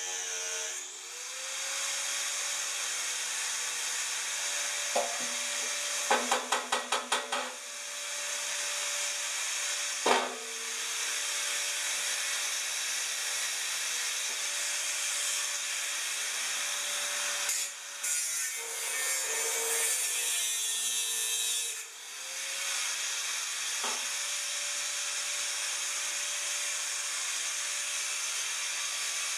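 Angle grinder cutting into a lorry exhaust silencer: a steady motor whine with the hiss of the disc on the metal. The pitch sags and climbs back as the disc is loaded and eased off. About six seconds in there is a quick run of knocks, and a single sharp knock comes about a second later.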